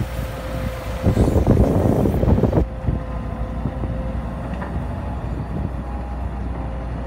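Caterpillar hydraulic excavator's diesel engine running steadily while it digs. A louder rough stretch of noise comes about one to two and a half seconds in, then the engine sound settles to a steady running drone.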